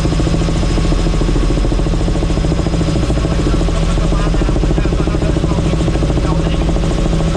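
Helicopter in flight, its engine and main rotor running steadily with a fast, even rotor beat under a constant low hum.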